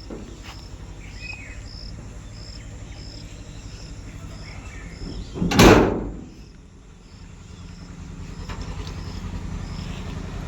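A farm machine's engine running steadily with a low, rapidly pulsing rumble that grows louder near the end, and a brief loud rush of noise about halfway through. A faint high chirping repeats about three times a second.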